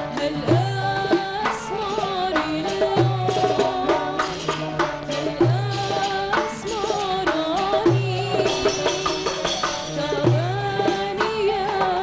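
A woman singing an Arabic song, accompanied by oud, qanun and hand percussion: jingling riq strokes and a deep darbuka beat that falls about every two and a half seconds.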